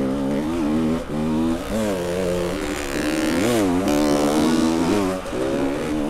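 Enduro dirt bike engine revving up and down as the throttle is repeatedly opened and closed, its pitch rising and falling with brief drops in level.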